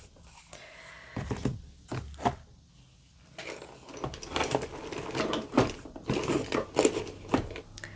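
A tarot deck being picked up and handled, with a few scattered taps and clicks. From about halfway there is a busy run of card rustling and clicking as the cards are shuffled.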